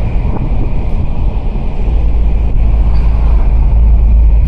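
Car driving with the top down: steady road and engine noise with heavy wind buffeting on the microphone.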